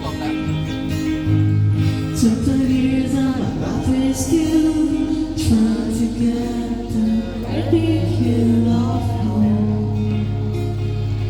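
A band playing a song with a singer, over sustained bass notes and light percussion.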